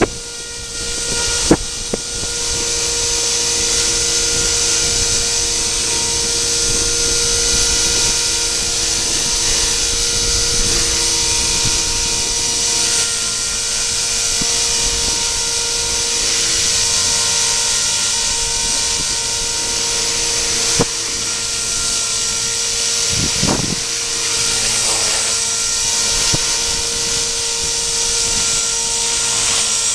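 Radio-controlled model helicopter in flight: the motor and rotors keep up a steady high whine at an even pitch, with a few knocks near the start.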